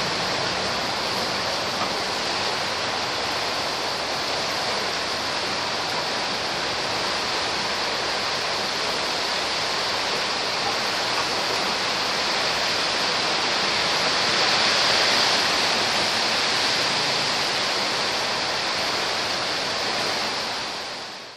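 Heavy rain pouring down steadily on trees and ground, a dense even hiss that swells a little heavier about two-thirds of the way through.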